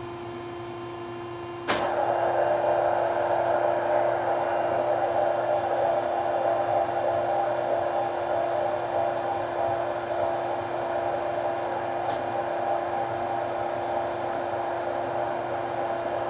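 Cincinnati-Milacron R-77 cylindrical grinder running an automatic plunge cycle. Over the steady hum of the running machine, a sharp click about two seconds in starts a steady grinding hiss that carries on, easing slightly, with another faint click near the end.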